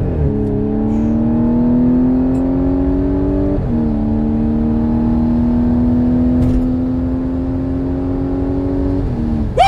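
2016 Audi S5's supercharged V6 at full throttle, heard from inside the cabin, its pitch climbing steadily through each gear. Quick upshifts drop the pitch near the start, about three and a half seconds in, and just before the end.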